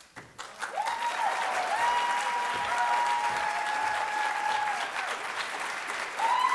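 An audience applauding, with long held whoops of cheering rising over the clapping about a second in and again near the end, where the applause swells louder.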